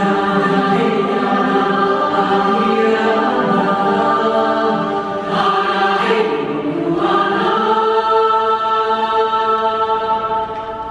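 Choral music with a choir singing long held notes in several voices, loud and full, as the opening music of a stage show.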